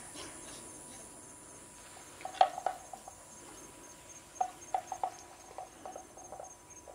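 Faint outdoor ambience with an insect chirping steadily, a high pulsing note a few times a second. A few short, sharp clicks or chirps come about two and a half seconds in and in a loose cluster near the end.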